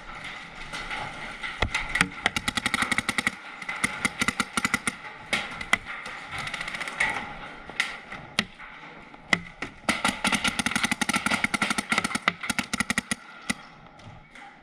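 Paintball markers firing rapid strings of shots in several bursts, with single shots between them.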